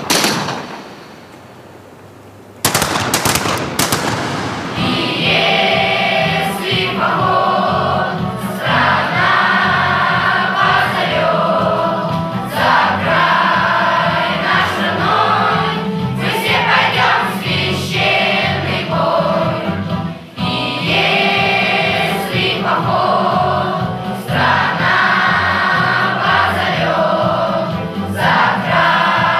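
A sharp bang at the start and another about two and a half seconds in, then a choir singing with instrumental backing and a moving bass line for the rest of the time.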